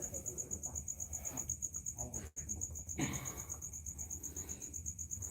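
Crickets chirping in a fast, even, high-pitched pulse that keeps up steadily.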